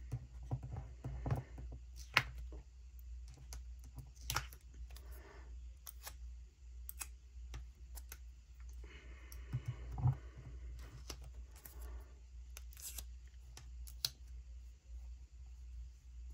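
Scattered light taps and clicks of metal tweezers and fingertips on paper planner pages while sticker scraps are placed, with a stretch of paper rustling about nine seconds in, over a low steady hum.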